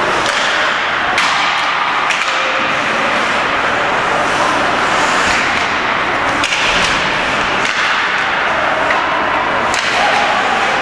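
Ice hockey game in play inside an arena: a steady din of rink noise, broken several times by sharp clacks of sticks and puck.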